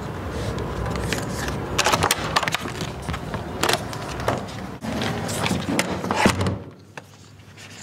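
Hotel room door being handled: a door hanger rustling on the metal lever handle, with several sharp clicks and knocks of the handle, latch and door, the loudest about six seconds in.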